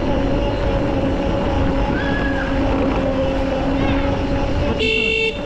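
Quad bike running at a steady speed with a constant hum, wind rumbling on the microphone. Near the end comes a short high-pitched beep lasting about half a second.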